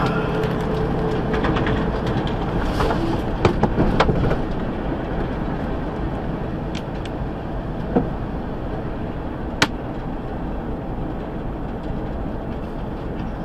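Steady engine and tyre noise heard inside a big truck's cab cruising at highway speed, with a few sharp clicks or rattles, the loudest about nine and a half seconds in.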